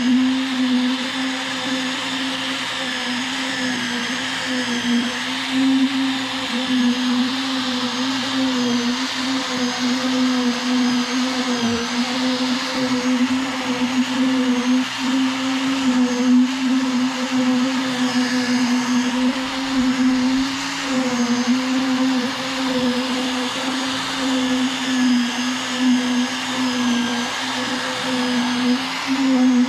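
Electric motor of concrete-working equipment running continuously with a strong steady hum that wavers slightly in pitch.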